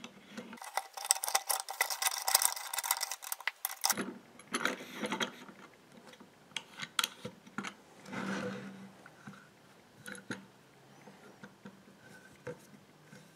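Hands handling a cast metal microscope stand: parts screwed and knocked together give clicks and scrapes, with a dense rattling stretch in the first few seconds, then scattered clicks and knocks.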